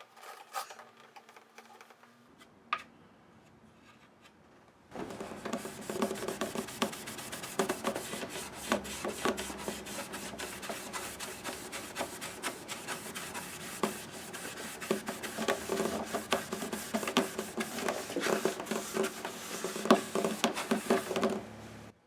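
Hand rubbing out the lacquer finish on a guitar's rosewood side, a finishing step over a repaired crack. After a few faint clicks, steady scratchy rubbing with rapid short strokes starts about five seconds in and stops abruptly just before the end.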